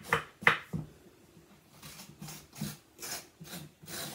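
Dessert spoon scraping the soft, stringy flesh out of a halved winter squash: a series of short scraping strokes, the loudest in the first second, then softer ones about twice a second.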